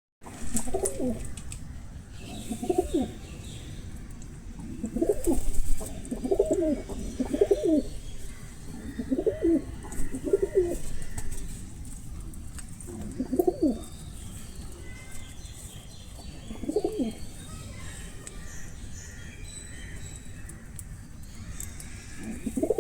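Low cooing bird calls, each with a rising and falling pitch, repeated every one to four seconds and sometimes in pairs. Faint, higher chirps come in between.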